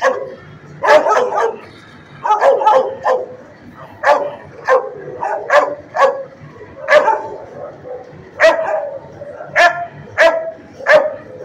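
Dog barking repeatedly in short, sharp barks, many in quick runs of two to four.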